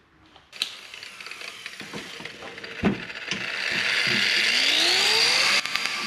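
Angle grinder working steel on the backhoe's frame bracing. Clicks and rasping come first, then a louder steady high grinding noise whose pitch rises, and the sound changes abruptly near the end.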